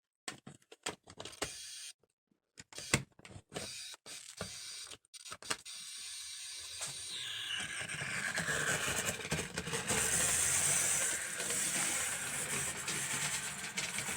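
HO scale model diesel locomotive being handled onto the track with scattered clicks and clacks. About halfway through its motor starts, and it runs along the track with a steady mechanical whirr and wheel clatter that grows louder. Its running is uneven, which the operator puts down to dirty contacts.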